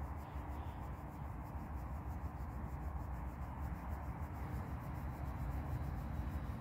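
Faint steady rumble and hum of an approaching regional passenger train, growing slightly louder near the end, under a low, uneven wind rumble on the microphone.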